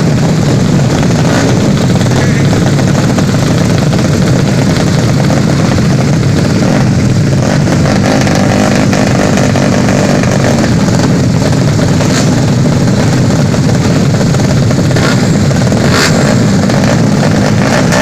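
Motorcycle engine noise, loud and steady, from a 200cc four-stroke underbone drag bike, with no clear rises or falls in pitch.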